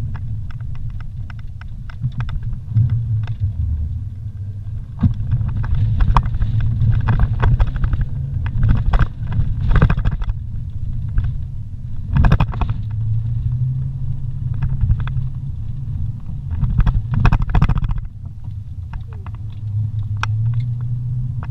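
Vehicle driving slowly over a rough dirt road: a steady low engine and road rumble with frequent knocks and rattles as it jolts over bumps, heard from inside the cabin.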